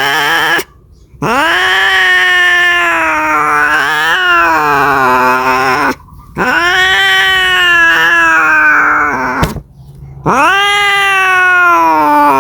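Cat yowling, a drawn-out caterwaul of the kind a cat makes when calling for a mate. Several long wavering calls, each a few seconds, rising then sliding down in pitch, with brief pauses between them.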